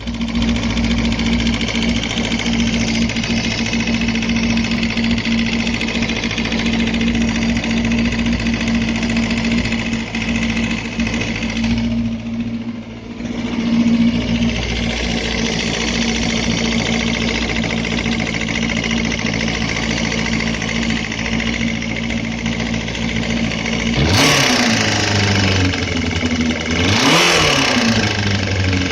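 Suzuki Bandit 250's inline-four engine idling with a knock, then revved twice near the end. The knock comes from a spun connecting-rod bearing on the third cylinder.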